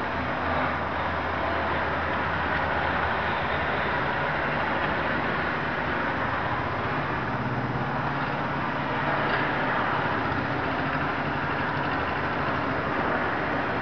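Steady road traffic noise from cars passing on a multi-lane road, with a low engine hum that swells near the start and again around the middle.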